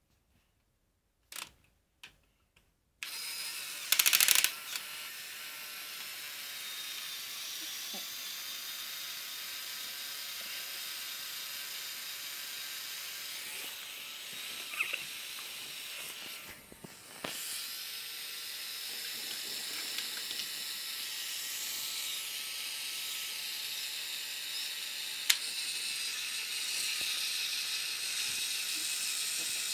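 A small electric motor and plastic gears in a Lego Technic truck whirring steadily, switched on about three seconds in after a few faint clicks. There is a loud rattle soon after it starts and a sharp click near the end.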